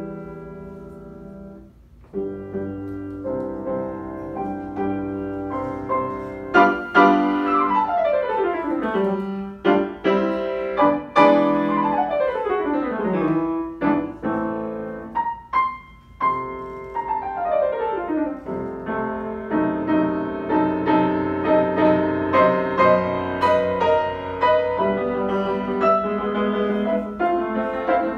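Grand piano played solo. A held chord fades into a brief pause about two seconds in, then a new passage begins with several fast descending runs.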